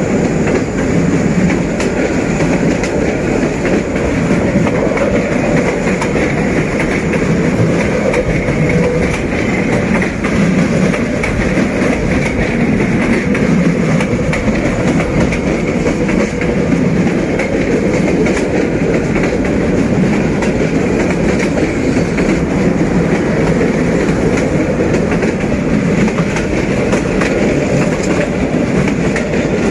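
Passenger train coaches running along the track: steel wheels rolling on the rails with a steady rumble and irregular clicks over the rail joints, heard from aboard the train.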